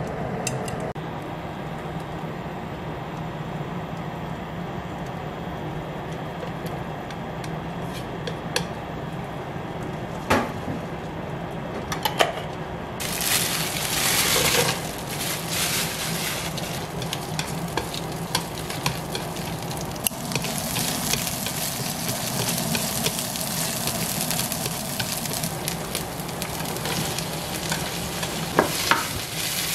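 Garlic and red chili flakes sizzling in hot oil in a frying pan. The sizzle starts suddenly about a third of the way in, after a quieter stretch of low steady hum and a few clicks. Near the end, a couple of sharp clicks as sliced vegetables are tipped into the pan.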